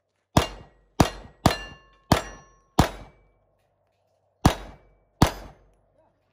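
Handgun fired at steel plate targets: five shots in quick succession, a pause of about a second and a half, then two more, with the hit steel plates ringing briefly after several shots.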